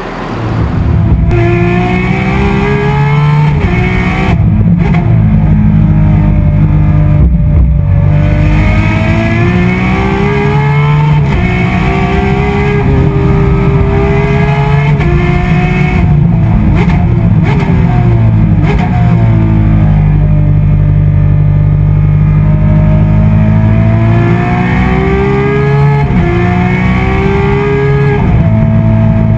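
Ferrari 599XX Evo's 700-plus-horsepower V12 at racing speed, heard from inside the cabin. Its pitch climbs under full throttle and drops sharply at each quick upshift. In the middle there is a cluster of rapid downshifts with crackles, then it climbs again through the gears.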